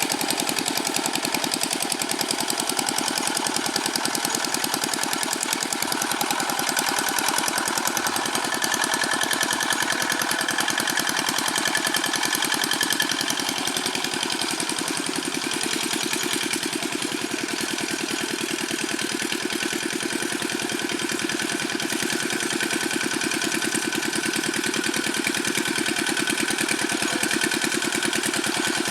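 Old single-cylinder Dongfeng diesel engine of a Quick G600 hand tractor running steadily with a fast, even firing rhythm.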